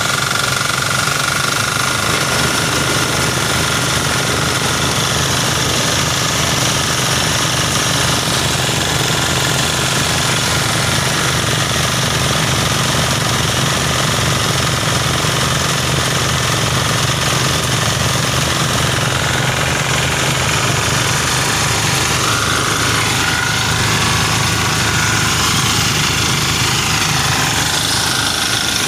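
Portable rice thresher running steadily, its small engine beating rapidly and evenly, as bundles of rice stalks are fed into the spinning threshing drum.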